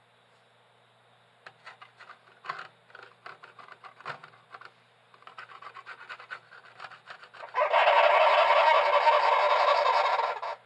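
Sugar glider crabbing: bursts of rapid clicking chatter, then about three seconds of loud, harsh buzzing that cuts off suddenly near the end. This is the defensive call of a frightened or annoyed glider.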